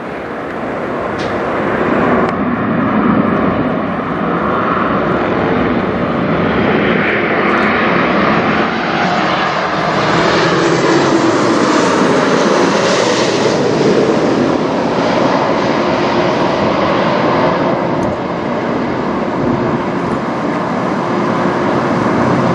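Boeing 737 MAX 8 airliner flying over on its arrival, its CFM LEAP-1B turbofans giving a loud, steady jet noise. The noise builds over the first couple of seconds, is strongest about halfway through, and slowly eases off.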